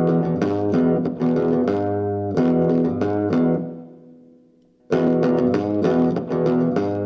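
Intro theme music of plucked guitar over a bass line, notes picked in a steady pattern. It fades out about four seconds in and starts up again suddenly about a second later.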